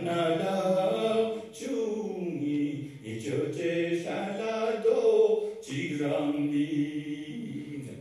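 A man singing alone without accompaniment into a microphone, in a chant-like style: long held notes that slide from one pitch to the next, sung in phrases with short breaks between them.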